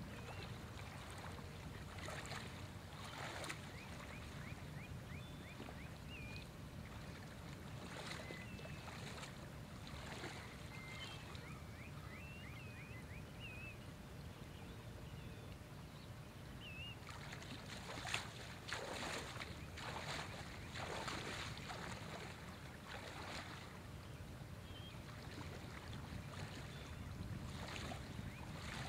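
Faint ambience at the edge of calm water: a low steady rumble with scattered soft splashes and ticks, which come more often a little past the middle.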